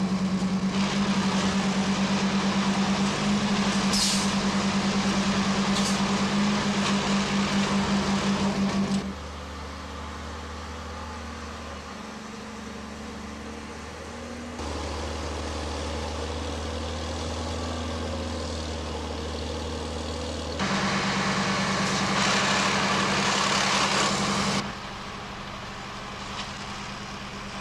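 Heavy engine of track-repair machinery running with a steady, rippling drone, heard in sections that switch abruptly between edits. The drone runs for about nine seconds, gives way to a quieter low hum, returns for about four seconds a little after twenty seconds, and then drops to a quieter background.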